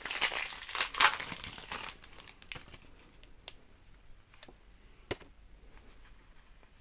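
Foil wrapper of a Pokémon trading-card booster pack being torn open and crinkled, loud for about the first two seconds. After that come only faint taps and slides as the stack of cards is pulled out and handled.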